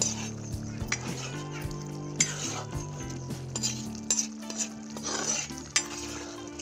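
Steel ladle stirring and scraping egg curry in a large iron kadai, with a few sharp clinks of the ladle against the pan, over the sizzle of the simmering curry.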